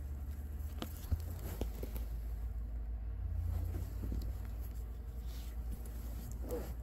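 An old paper-covered book being closed and turned over in the hands: a few light taps in the first two seconds and a papery rustle near the end, over a steady low hum.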